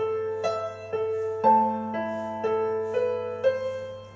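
Gentle piano-toned keyboard accompaniment with no vocal, playing a repeating broken-chord pattern of about two notes a second over a held low note.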